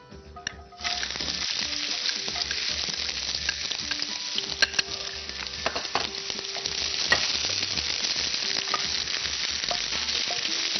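Sliced onions dropped into hot oil in a non-stick frying pan, sizzling steadily from about a second in, with spatula clicks against the pan as they are stirred.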